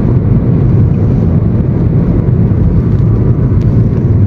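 Car driving: a steady, loud low rumble of engine and road noise.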